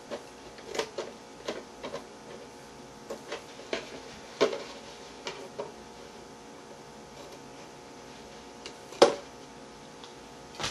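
Scissors snipping through the wall of a plastic milk jug to cut a hole: a run of irregular crisp snips for about the first six seconds, then a lull and one louder click about nine seconds in.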